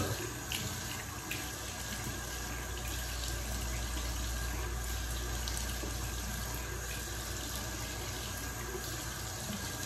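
Bathroom sink tap running steadily into the basin, with a couple of faint knocks in the first second or so.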